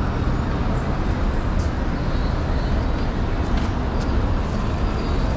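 City street traffic: a steady rumble of passing motor vehicles.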